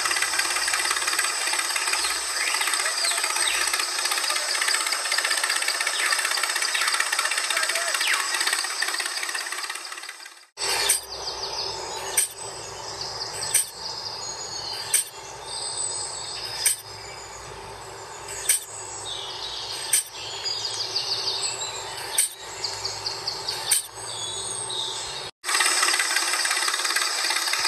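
A dense, steady outdoor hiss with bird chirps. For a long middle stretch it gives way to a quieter run of sharp taps, about one every one and a half seconds, as a miniature hand hoe digs soil into a toy tractor trolley.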